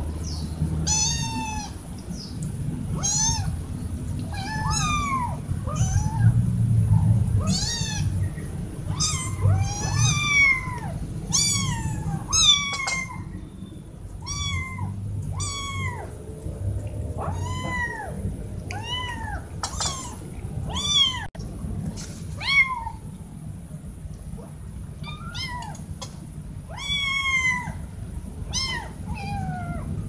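Kittens meowing over and over: short, high calls that rise and fall in pitch, coming about once a second with a couple of brief pauses.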